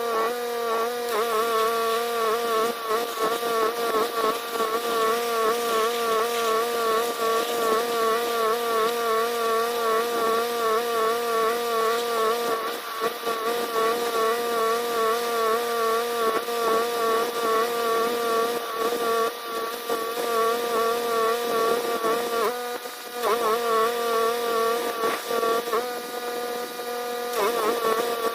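Pressure washer running steadily: its engine and pump drone with a slightly wavering pitch over a hiss, dipping briefly twice about two-thirds of the way through.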